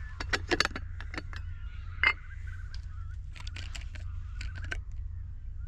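Camping gear being handled: a run of light clicks and rattles with one sharper knock about two seconds in, over a steady low rumble.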